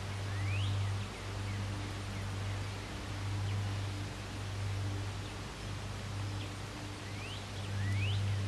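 A low hum that swells and drops out about once a second, under a steady hiss, with a few short rising bird chirps about half a second in and again near the end.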